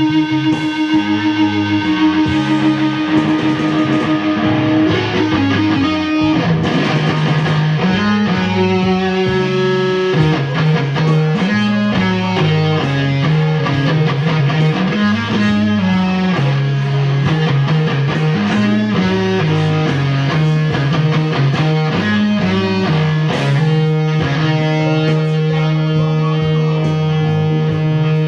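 Electric guitar music, with sustained notes over a moving lower melody line.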